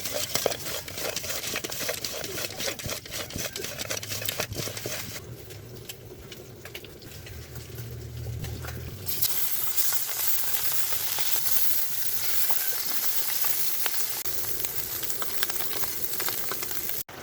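Food frying in hot oil in a pan while a spatula stirs and clicks against it. The clicking is busiest in the first few seconds, and from about halfway through a loud, steady sizzle takes over until it cuts off suddenly near the end.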